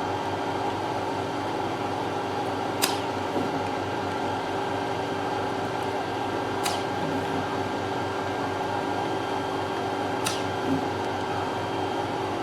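CTL69 vacuum RF body-contouring machine running: a steady hum from its vacuum pump with several held tones, and a sharp click about every three and a half to four seconds, three times.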